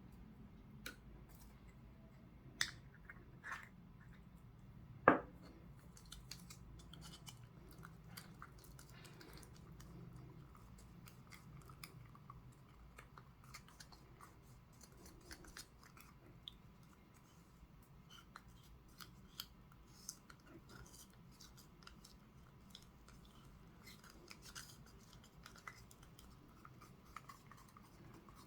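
Hand work on small plastic mold parts: scattered light clicks, taps and scratching, with one sharp click about five seconds in and a few more in the first seconds.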